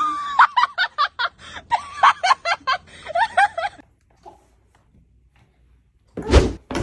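Hearty laughter in rapid, pitched bursts for nearly four seconds. Then quiet, and a loud thump near the end.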